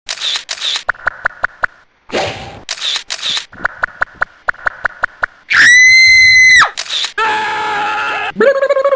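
A string of short stock sound effects played back to back. It opens with camera-shutter-like clicks and rapid ticking. A loud, steady high buzzer tone lasts about a second, from about five and a half seconds in. A chime-like chord and a rising tone follow near the end.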